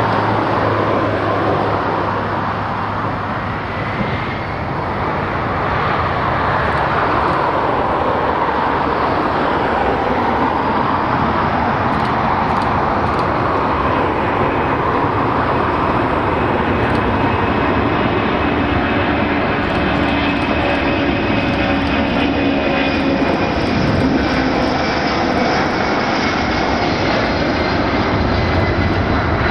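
Boeing C-32A (military Boeing 757) with its two Pratt & Whitney PW2040 turbofans at take-off power on the runway: a steady, loud jet roar with a high turbine whine.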